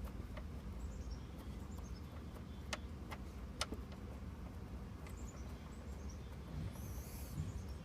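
A few sharp clicks and taps of hand tools working on the lower door hinge bolts, the loudest about a third of the way in. Twice a bird calls in the background, a quick run of high notes stepping downward.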